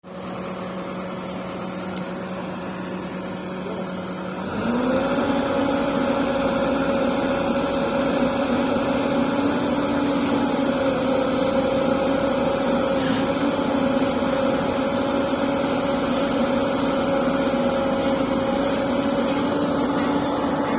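Excavator's diesel engine running steadily, then revving up about four and a half seconds in and holding at the higher speed.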